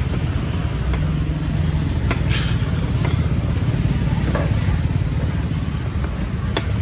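Busy street ambience: a steady low rumble of passing road-traffic engines, with scattered short clicks and knocks.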